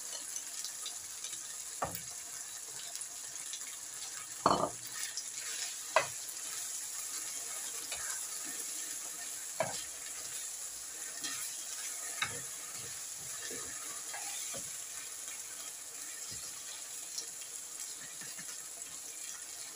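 Chicken and tinned tomatoes sizzling in a frying pan on high heat, stirred with a spatula, with a few sharp knocks of the spatula against the pan, the loudest about four and a half and six seconds in.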